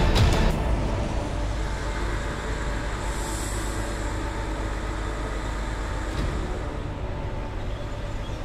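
Steady low drone of a crane lorry's diesel engine running to drive the hydraulics of its lorry-mounted crane while the crane holds a locomotive in the air. A brief hiss comes about three seconds in.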